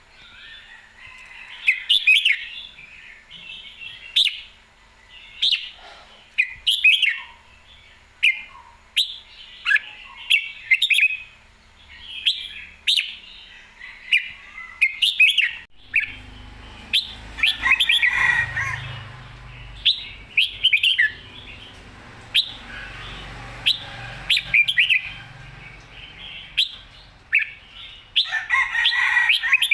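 Red-whiskered bulbul singing in full voice, a spirited bird giving short, clear phrases of quick notes again and again. A low rumble runs under the song from about halfway on.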